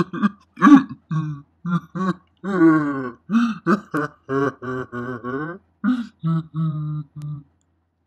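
A person's voice making a quick string of short wordless sung or hummed notes, about two to three a second with brief silences between, stopping shortly before the end.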